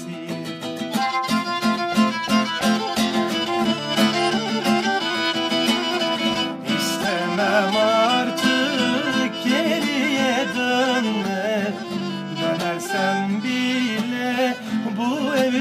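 Instrumental break in a Turkish song: a bowed string melody with wavering vibrato over a busy plucked and strummed accompaniment, with no singing.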